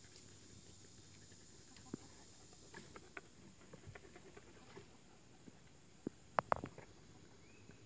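Lavender Ameraucana chickens scratching and pecking in dry forest leaf litter: faint, scattered rustles and ticks, with a sharper quick cluster of clicks about six and a half seconds in.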